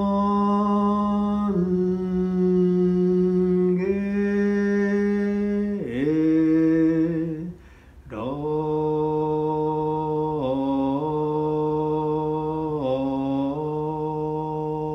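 A Shin Buddhist priest chanting solo in long, drawn-out notes, his voice stepping between a few pitches. He breaks off for a breath about halfway through and resumes on a lower pitch.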